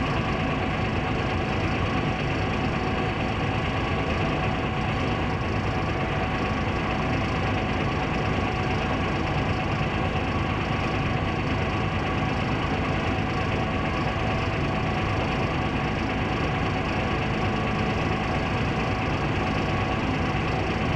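Heavy excavator's diesel engine running steadily.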